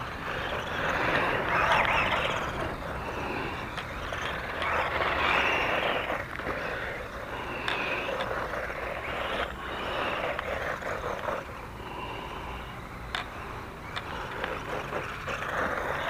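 1:16-scale four-wheel-drive electric RC ATV driving over wood chips: its small motor whining and surging with the throttle while the wheels churn through the chips, with a few sharp clicks.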